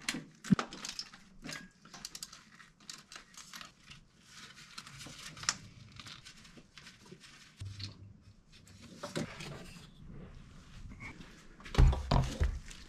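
Scattered light clicks and metallic clinks of a hand tool and loose parts as the last carburetor mounting bolts are undone on a 1979 Toyota Corolla engine, with a low thump near the end.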